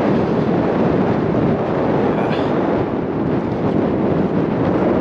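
Wind buffeting the camera's microphone while cycling, a loud steady rush with no let-up.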